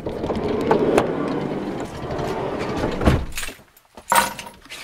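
A panel van's sliding side door unlatched with a click and rumbling along its track, stopping with a heavy thunk about three seconds in. A short sharp clatter follows about a second later.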